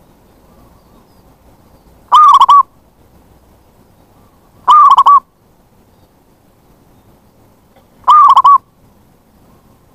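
Zebra dove (perkutut) calling: three short, loud calls a few seconds apart, each a quick run of cooing notes.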